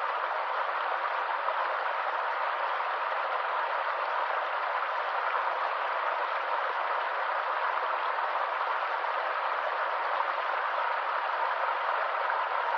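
Stream water rushing over rocks, a steady, unbroken rush of running water.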